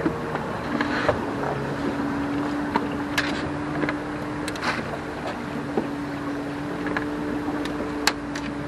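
Boat motor running steadily at low speed, a constant even hum. Scattered sharp clicks and knocks come and go over it.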